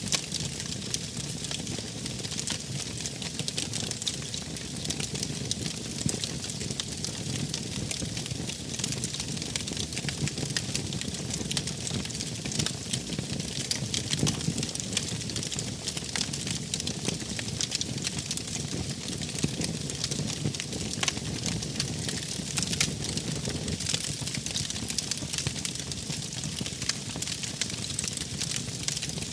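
Wood fire burning steadily, with a low rumble of flames and many small sharp crackles and snaps throughout.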